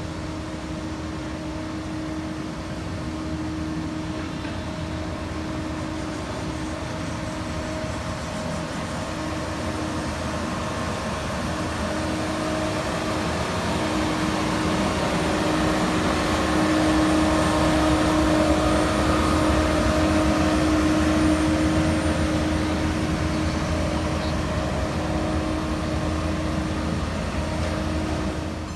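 Heavy diesel construction machinery running steadily with a constant engine drone, growing louder toward the middle and easing a little near the end.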